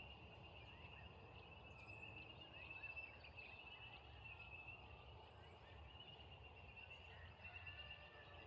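Near silence: faint outdoor ambience with a steady high-pitched buzz and a few faint, short bird chirps over a low rumble.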